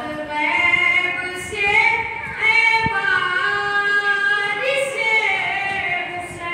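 A boy's voice chanting a noha (mourning chant) unaccompanied into a microphone, in long drawn-out notes that step from one pitch to the next.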